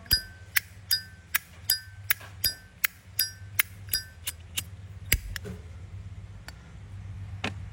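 A Zippo lighter's lid flicked open and snapped shut over and over. Each open rings with a bright, bell-like clink, tuned for that chime, between plainer clicks as it closes. The clicks come about two or three a second for some four seconds, then twice more on their own.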